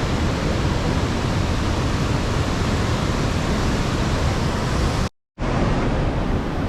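Swollen monsoon river water rushing into the Erattayar tunnel intake: a loud, steady wash of water noise. The sound cuts out completely for a split second about five seconds in.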